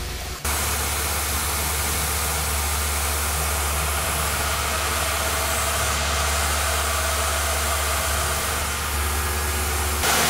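Tormach PCNC 1100 CNC mill machining brass parts: a steady hiss with a low hum under it, with no change in rhythm. The sound steps up about half a second in.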